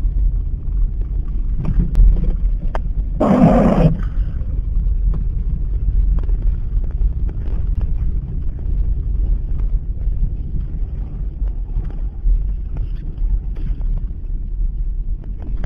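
Car driving on snowy roads: steady low engine and road rumble, with a brief louder rush of noise about three seconds in.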